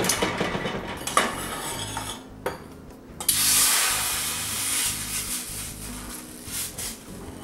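Metal tongs clattering and clinking against a small preheated stainless steel bowl on the open oven door. About three seconds in, hot water poured into the hot bowl hisses loudly for about two seconds, raising steam for baking the bread.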